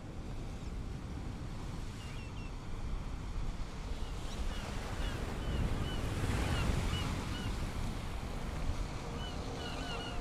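Ocean surf and wind rushing, swelling to a peak about midway, with small birds chirping over it more and more often toward the end.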